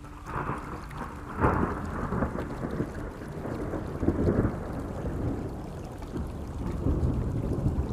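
Thunder rumbling over steady rain, with the loudest rolls about one and a half seconds in and again around four and seven seconds.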